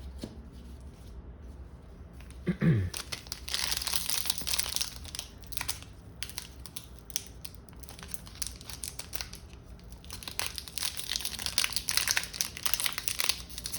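Pokémon booster pack foil wrapper crinkling and tearing as it is handled and opened, in two busy stretches, one a few seconds in and another near the end.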